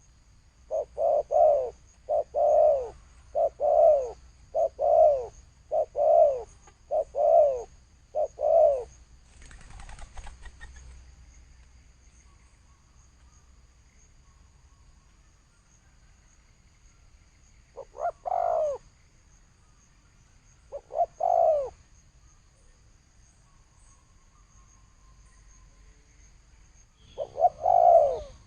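Spotted dove (cu gáy) cooing in the 'thổ sấm' style: a quick run of about eight coos, a brief rustle, then after a long pause two short bursts of coos and another burst near the end. A faint steady high whine runs underneath.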